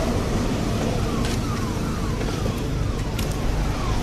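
Motorcycle running at low speed with a steady low rumble of engine and wind on the microphone, and a short falling electronic beep repeating about two to three times a second from about a second in.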